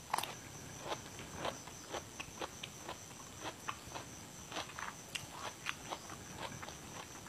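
Close-miked chewing of crisp raw vegetable stalks: irregular crunches and wet mouth clicks, a few each second.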